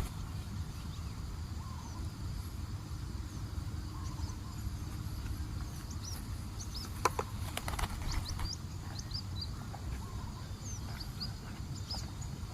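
Steady low rumble of wind on the microphone, with scattered short, high chirps of small birds and a brief cluster of sharp clicks about seven seconds in.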